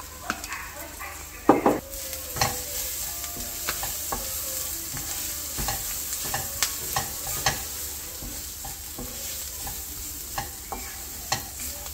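Chopped onions and chilli powder sizzling in oil in a black frying pan, stirred with a wooden spatula that scrapes and knocks against the pan. The sizzle grows louder about two seconds in, and the loudest knock comes about one and a half seconds in.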